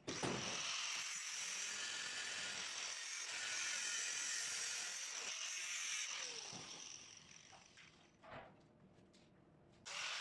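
Angle grinder working on iron, a steady high grinding noise that runs for about six seconds and dies away over the next two, then starts again near the end.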